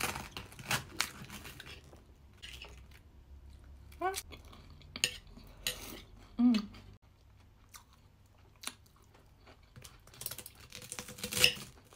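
Knife and fork clicking and scraping on a plate while cutting roast meat, with chewing in between; the loudest scraping comes near the end.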